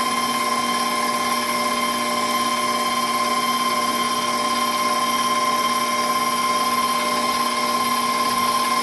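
Electric stand mixer running steadily, its wire whisk whipping thin icing in a stainless steel bowl: an even motor whine that holds one pitch throughout.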